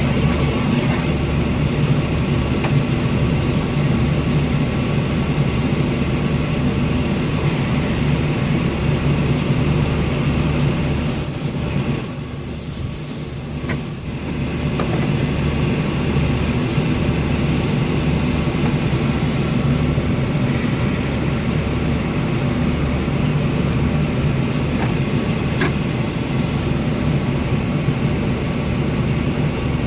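Car engine idling steadily with the air-conditioning compressor engaged and running, the compressor having cut in once the first 12 oz can of refrigerant was charged. The sound goes briefly quieter about twelve seconds in.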